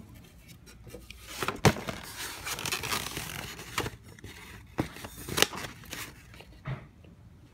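Handling noise: rustling with a few sharp knocks and clicks as the phone and a foam takeout container are handled on bedding, the loudest knock about a second and a half in.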